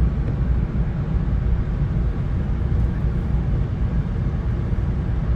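Steady low rumble inside a VIA Rail passenger train as it rolls into the station.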